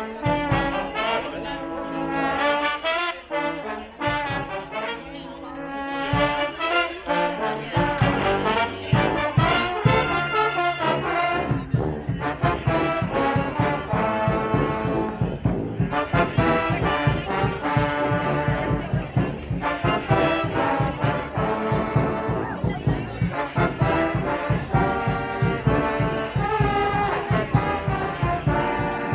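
Street brass band playing: trombones and trumpets over a low bass line. Drums join about a third of the way through, and the band plays loud and full from there.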